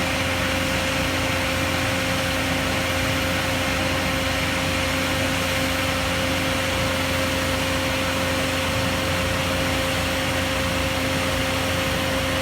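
An engine running steadily with a constant hum, with no change in speed.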